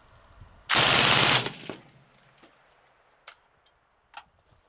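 Suppressed Lage MAX-11/15 5.56 rifle (TAC16 suppressor) firing one short full-auto burst of under a second, at about 940 rounds a minute with the gas block open seven clicks. A few faint clicks follow.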